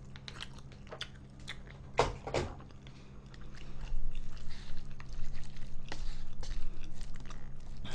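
Chopsticks stirring thick sauced instant noodles in a paper cup after more hot water has been added, wet squishy clicking with some chewing. Two sharper clicks come about two seconds in, and the stirring gets busier from about halfway.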